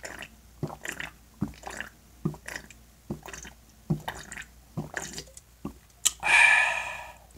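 A person gulping a drink from a can, close to the microphone: a string of short wet swallows about every half second to a second. Near the end a louder breathy exhale as the can comes down.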